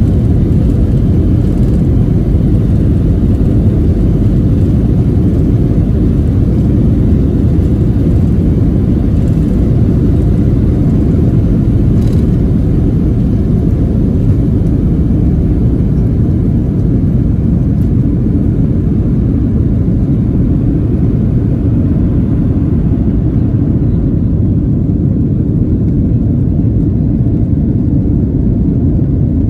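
Cabin noise of a Boeing 737-400 on its takeoff roll: the CFM56 engines at takeoff thrust and the runway rumble make a loud, steady, low roar. It eases a little near the end as the aircraft lifts off.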